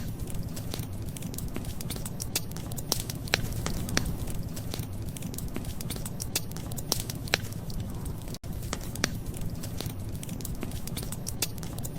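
Wood fire crackling, with irregular sharp pops and snaps over a steady low rumble of burning. The sound cuts out for an instant about eight seconds in.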